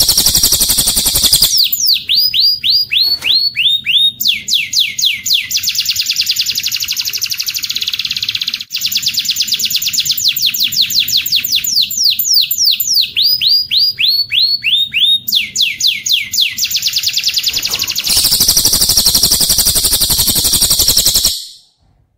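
Recorded cililin song joined to domestic canary song: a dense high trill, then long runs of rapid whistled notes sweeping downward, several a second, then the dense trill again, which stops suddenly shortly before the end.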